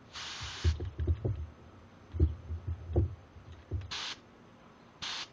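Short blasts of compressed air hissing from an air spray gun as its trigger is pulled: one about half a second long at the start, a brief one about four seconds in and another near the end. Dull handling knocks from the hose and inline regulator come in between.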